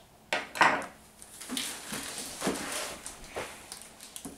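A plastic pet enclosure being handled and unwrapped: a few knocks and clatters of hard plastic, the loudest about half a second in, with its plastic bag wrapping rustling.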